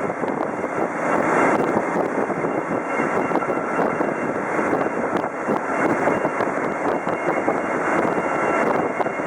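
Land Rover Defender driving, a steady rush of engine and road noise.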